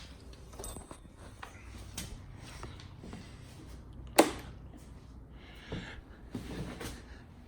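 A single sharp click about four seconds in, typical of a motorcycle switch being flipped to test the lights, with a few faint ticks and handling noises over a low steady hum.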